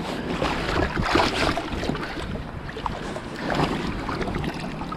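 Shallow river water splashing and sloshing in a few surges as a hooked coho salmon is landed by hand while wading, with wind buffeting the microphone.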